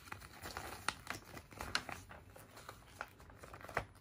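Folded paper instruction leaflet being unfolded by hand, crinkling throughout, with a few sharp paper snaps as the folds open.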